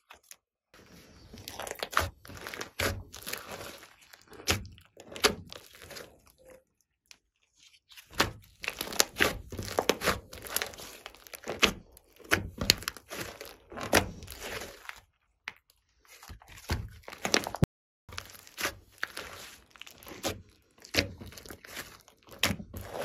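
Glossy slime mixed with clay and makeup being squeezed and stretched by hand: irregular sticky pops, crackles and squelches in clusters, with a few brief pauses.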